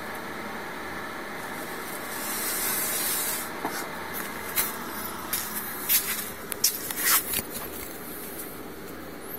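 Remote-control electric wheelchair-base mower being driven around a shop floor: its drive motors run under a steady noise, with a spell of hissing tire scrub about two seconds in, then several sharp knocks and clicks from the frame and wheels.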